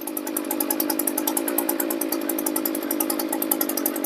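Small two-stroke engine running steadily, firing in a rapid, even rhythm.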